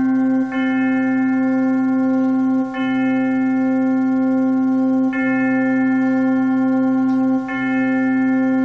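Organ playing slow, sustained chords over a steady low note, the upper notes changing together about every two and a half seconds with a brief break at each change.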